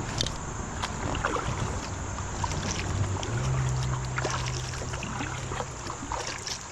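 Water lapping and splashing around a kayak on a river, with scattered small clicks and splashes and a low steady hum from about halfway through.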